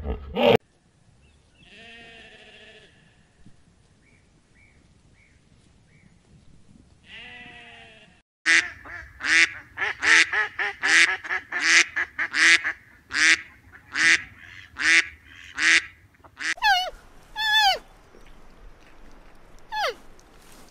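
Greylag geese honking, with a couple of fainter calls first and then a run of about a dozen loud honks close together, roughly two a second. Near the end come a few high calls that fall in pitch.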